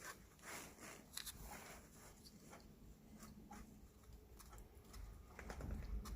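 Faint clicks and rustling from small plastic parts being handled, as a fuel level sensor is taken apart by hand.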